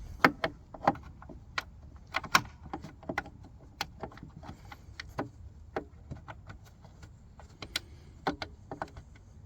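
Irregular sharp clicks and knocks of hands working small parts: the retaining nuts being fitted back onto the rear lamp cluster of a Mk 7 Ford Fiesta.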